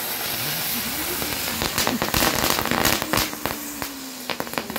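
Several ground spinner fireworks (ground bloom flowers) spinning on the ground with a loud hiss and a whirring tone that rises, then holds. From about two seconds in, sharp crackles run through it.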